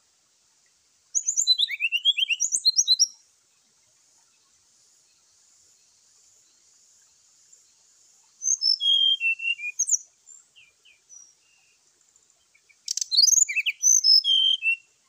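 Brown-chested jungle flycatcher singing its combative fighting song: three bursts of rapid, high, varied chirping notes, about two seconds each, near the start, in the middle and near the end. A faint steady high hiss runs underneath.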